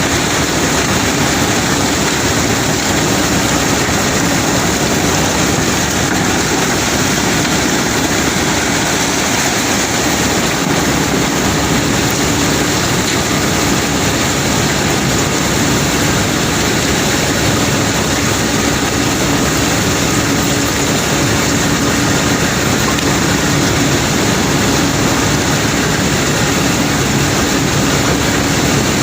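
Heavy unloading machinery on a cobblestone barge running steadily: a constant engine hum under a dense, even mechanical noise.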